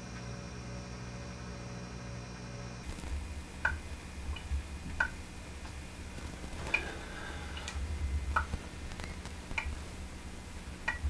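About eight short, sharp clicks and taps at irregular intervals, some with a brief glassy ring: raw eggs cracked against a pint glass and the glass knocked on a laminate countertop. A steady low hum fills the first few seconds.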